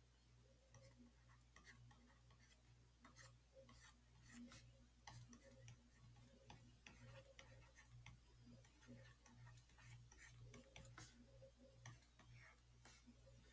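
Near silence: faint, irregular ticks and taps of a stylus writing on a tablet screen, over a low steady hum.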